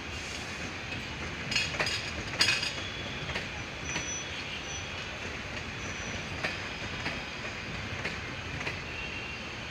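Passenger train rolling along the track: a steady rumble with scattered sharp clacks of wheels over rail joints, the loudest cluster a couple of seconds in, and a few brief faint wheel squeals in the middle.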